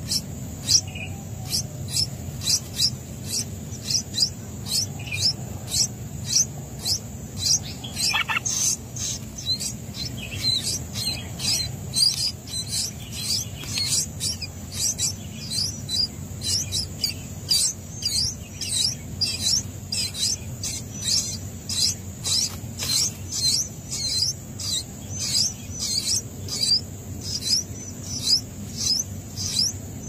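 Songbird nestlings begging from the nest: a fast, unbroken series of thin, high chirps, about three a second.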